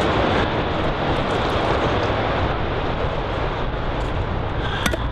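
Steady rushing outdoor background noise, with one sharp click near the end.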